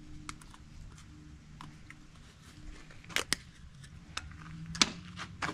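Small clicks and snaps of a plastic cap and seal being worked off a bottle of chainsaw bar oil by hand: two sharp clicks close together about three seconds in, and a louder snap near the end, over a faint steady low hum.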